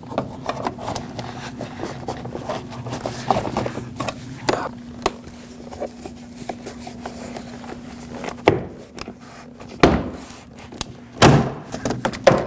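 Plastic retaining clips of a Lexus IS250 front door panel being pried loose with a plastic trim tool: small clicks and scraping, then four sharp pops in the second half as the clips let go.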